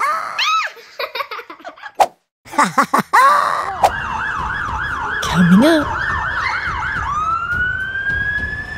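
Brief voice sounds, then a fire engine's electronic siren in a fast yelp, rising and falling about three times a second. Near the end it changes to a slow rising wail.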